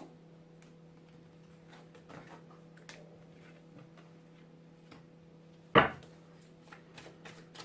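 Tarot cards being handled and laid down: faint light clicks over a steady low hum, one sharp thump close to six seconds in, and a quick run of small clicks near the end.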